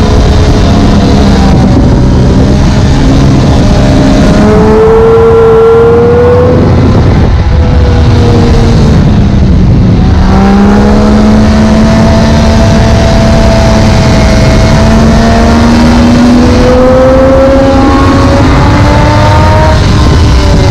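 2017 Triumph Daytona 675R's inline three-cylinder engine at high revs on track, heard over heavy wind noise. The revs ease off partway through, then climb steadily under hard acceleration to the end.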